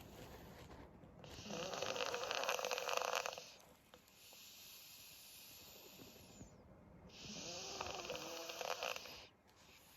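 Old black pug snoring through a stuffed-up nose: two long snores, about a second in and about seven seconds in, each lasting some two seconds, with quieter breathing between.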